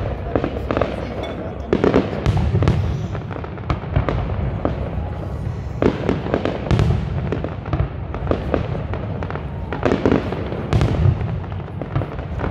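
Aerial fireworks shells bursting in quick succession: many sharp bangs and crackles over a continuous low rumble, with the heaviest clusters about two, six and ten seconds in.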